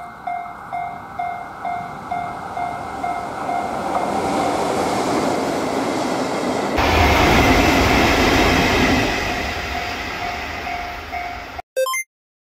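Japanese level-crossing alarm ringing in steady dings about twice a second while a JR Freight EF81 electric locomotive pair approaches and passes at speed, the rail noise building and then becoming a loud rumble about seven seconds in. The sound cuts off suddenly near the end, followed by a brief tone.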